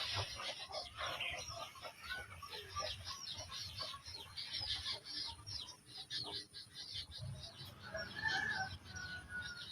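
Chickens clucking in quick runs of short notes, with a longer call about eight seconds in.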